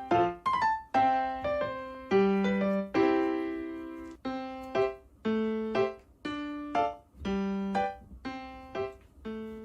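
Background music: an electric piano playing a slow, simple melody, notes struck one or two a second and left to fade.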